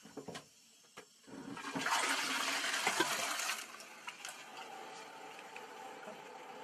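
A few light clicks, then a loud rush of water starting about a second and a half in and lasting about two seconds, which fades to a quieter steady hiss.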